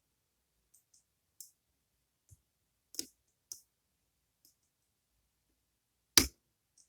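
Lock pick and tension wrench working the pins of a Goal Z pin-tumbler lock with spool pins: faint scattered ticks of metal on metal, a couple of sharper clicks about three seconds in, and one loud sharp click about six seconds in.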